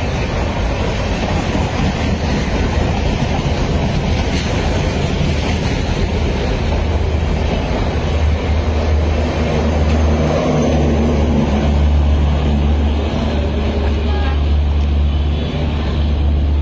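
Passenger train of Bangladesh Railway coaches rolling along the rails past a station platform, a steady rumble of wheels on track. A low steady hum grows stronger about halfway through.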